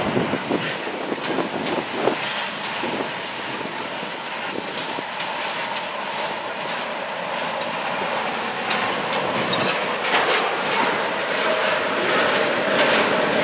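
CSX freight cars rolling past on the track with a steady rumble, and wheels clicking irregularly over rail joints.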